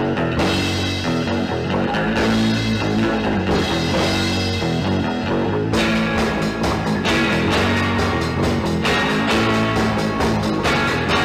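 Rock theme music with electric guitar, bass and drum kit playing at a steady beat.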